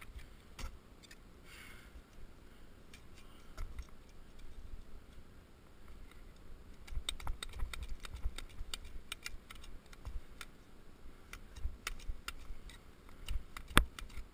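Ice axes and climbing gear knocking against a frozen waterfall: scattered small sharp clicks and taps with dull thuds, coming thicker from about halfway, with one louder knock near the end.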